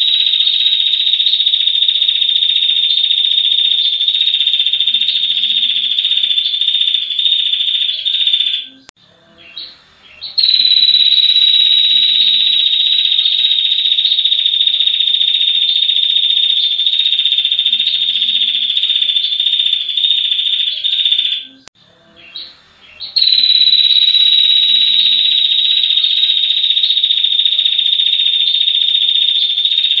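Female ashy tailorbird giving its long, high trill ('ngetir panjang'). There are three long stretches, each starting a little higher and then settling, with two short breaks about 9 and 22 seconds in.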